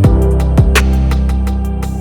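Background music with a steady beat: sustained low bass notes and regular sharp percussion hits.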